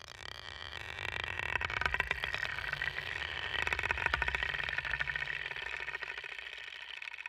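Plastic Lego Technic gears turning, a rapid run of fine clicks that swells over the first few seconds and then fades.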